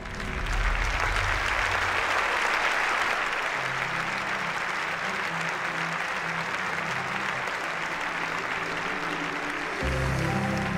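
Large audience applauding, with music playing underneath; near the end the applause gives way to louder music.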